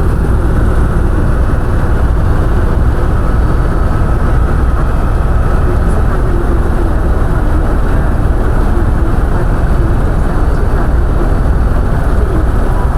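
Helicopter cabin noise: a loud, steady rumble of engine and rotor, heaviest in the low end and unbroken throughout.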